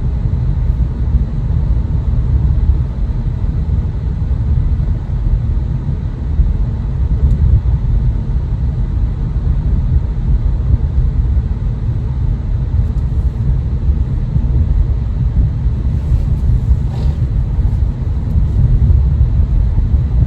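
Steady low rumble of a car being driven, heard from inside: road and engine noise.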